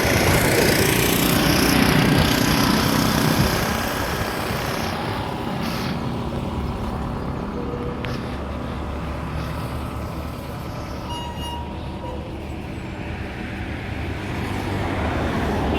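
Road vehicle noise: a vehicle, likely a truck, passes close and loud for the first few seconds, then the sound settles to a quieter, steady engine hum.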